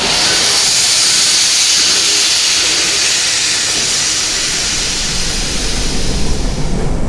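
A NSWGR steam locomotive venting steam in a loud, steady hiss. About five seconds in the hiss fades and gives way to the low rumble of a railway carriage running along the track.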